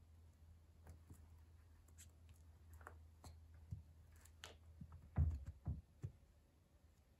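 A wooden pencil being crushed under a leather boot on a hard floor: scattered small clicks and creaks, then a cluster of louder cracks about five seconds in as the wood splinters. A faint low hum runs underneath.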